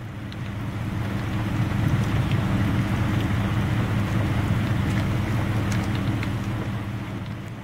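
Steady rain from a severe thunderstorm: an even hiss with scattered drop ticks, over a steady low hum.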